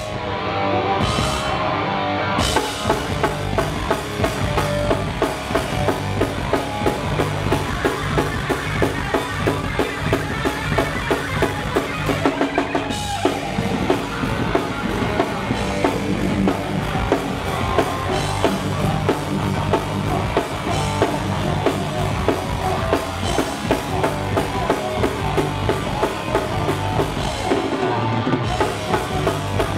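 Live hardcore punk band playing loud: electric guitar and bass guitar over a drum kit pounding a steady, heavy beat.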